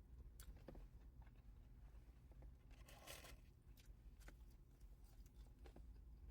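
Near silence: a low steady hum with scattered faint clicks and one brief rustle about three seconds in.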